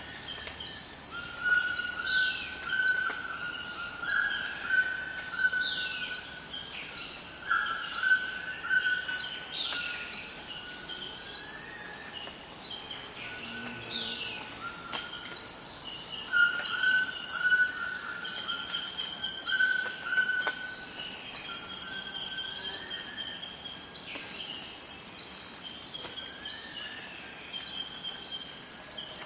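Toucans calling in rainforest over a steady high-pitched insect drone. The calls repeat throughout: short falling cries and held level notes.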